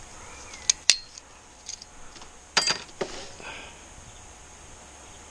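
Sharp metallic clinks and taps of brake pads and caliper parts being handled at a motorcycle's front brake caliper during pad removal. Two clicks come about a second in, one with a brief ring, and a louder clink with a short ring comes midway, followed by a few fainter taps.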